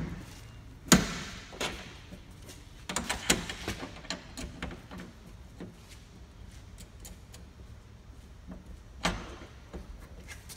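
Metal clanks and clicks of an enclosed cargo trailer's door latch bars and padlocks being worked and locked. There is a sharp knock about a second in, a clatter of clicks around three seconds, and another knock near the end.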